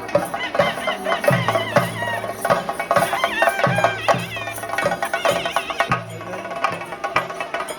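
Live Theyyam ritual music: chenda drums beaten in a steady rhythm of about two strokes a second, with a high, wavering melody gliding over them.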